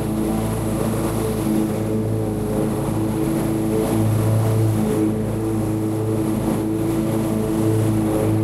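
Lawn mower engine running steadily under load as it cuts tall grass, an even low hum that holds its pitch throughout.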